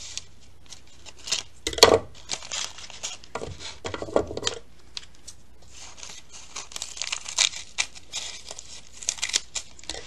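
Fringe scissors snipping across folded brown paper bags, the stiff paper crinkling and rustling between cuts. The snips and crackles come irregularly, the loudest about two seconds in.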